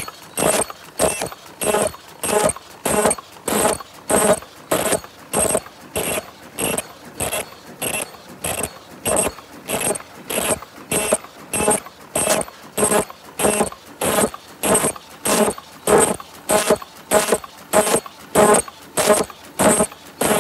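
Paper cup making machine with an open cam drive running at speed, a steady mechanical clatter repeating about twice a second, one clack per machine cycle.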